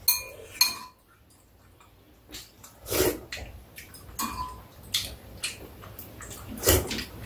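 Metal spoons clinking and scraping against ceramic bowls at a meal, a string of light clinks that each ring briefly, with a short lull about a second in.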